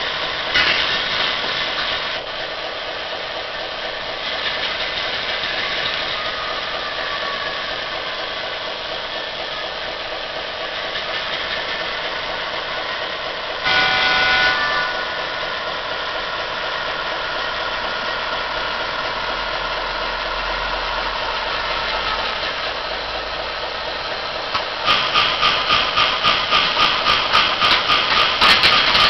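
MRC DCC sound decoder in an HO-scale GL-8 model locomotive, playing a GM switcher diesel engine idling steadily through the model's small speaker. About 14 seconds in a horn sounds for about a second. Near the end a bell rings in rapid even strikes, about three a second.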